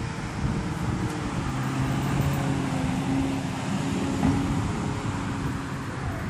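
A car driving past on the street: a low engine hum and tyre rush that swell and then ease off near the end.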